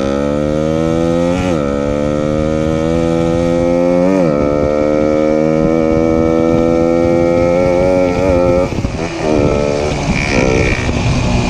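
Suzuki Raider 150's single-cylinder four-stroke engine, breathing through a Koso EVO 30mm flat-slide carburettor, pulling hard under acceleration, its pitch climbing steadily. Two brief dips in pitch, about a second and a half and about four seconds in, mark upshifts. After about eight and a half seconds the throttle closes and the engine note drops and turns uneven, with wind rushing over the microphone throughout.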